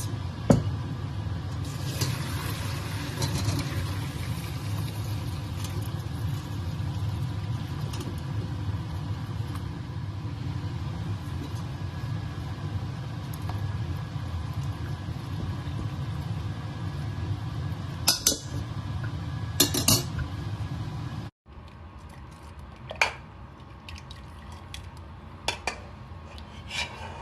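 Boiled pine-cone liquid being poured off and strained into a metal pot, a steady pour with a few clinks of pots and utensils. The pour stops abruptly about two-thirds of the way through, leaving occasional light clinks.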